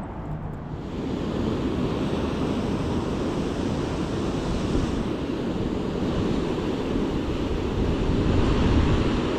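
Steady rush of river water pouring over a low dam, with wind buffeting the microphone; the rush starts about a second in.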